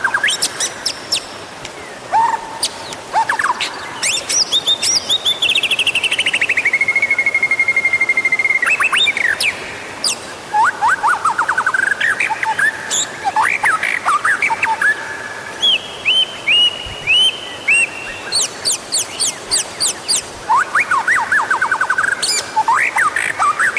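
White-rumped shama (murai batu) singing a long, varied song of rapid trills, sharp high notes and whistled phrases, including a drawn-out trill that slides down and then holds steady. This is the kind of recording played as a lure to set caged shamas singing.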